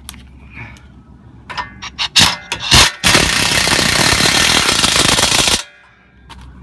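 Compact half-inch-drive air impact wrench (AIRCAT 1055-TH) driving a tie rod bolt: a few short blips and knocks, then about two and a half seconds of continuous rapid hammering that cuts off suddenly.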